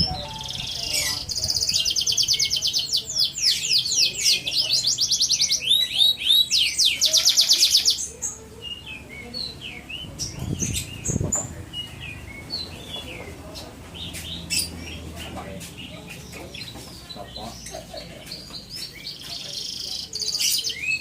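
Canary singing: a loud run of rapid, fast-repeated trills for the first eight seconds or so, then softer scattered chirps, and another trilled phrase near the end.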